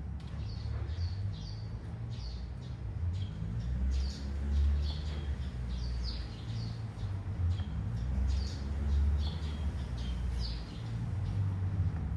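Small birds chirping in short, repeated high calls, over a low rumble that swells a few times.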